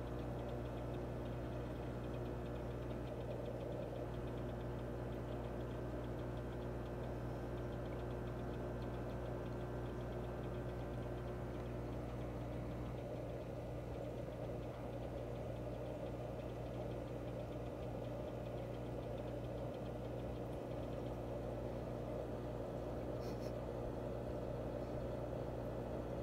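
Steady low mechanical hum of an aquarium pump, running without change.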